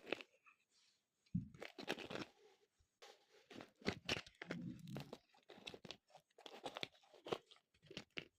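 Eraser packaging being handled and torn open: irregular bursts of crinkling and tearing with short pauses between them.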